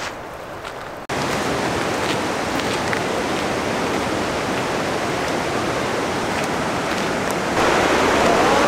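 A few light footsteps on gravel, then about a second in a steady rushing of falling water from a waterfall cuts in abruptly and steps louder near the end.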